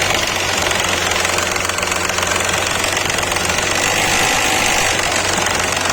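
Chevrolet Onix engine running under acceleration in third gear while the car moves, with the small fault noise ("barulhinho") that appears on acceleration, a defect known on GM's Onix and Prisma.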